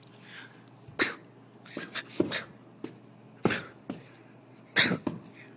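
Japanese Chin dog giving a series of short, sharp, breathy huffs, about eight, in uneven clusters.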